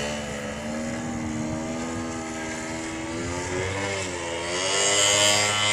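Motor and propeller of a radio-controlled aerobatic model airplane in flight, its pitch sliding down and back up, getting louder near the end.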